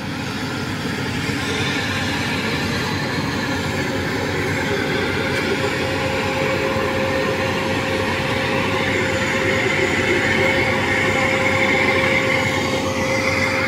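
A rice combine harvester, the 115PRO, running steadily under load as it cuts and threshes standing rice: a continuous mechanical rumble with a steady whine, and a higher whine joining in past the middle.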